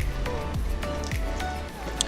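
Background music under a pause in speech.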